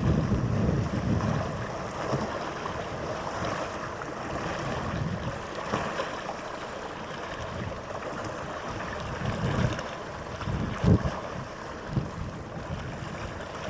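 Wind buffeting the microphone in uneven gusts, giving a low rumble with a few sharper thumps, over a steady waterside hiss.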